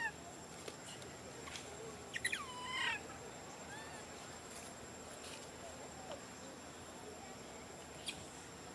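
Baby macaque crying with short, high-pitched distress calls: a brief cry at the start and a louder, falling cry about two seconds in. A steady high insect drone runs behind.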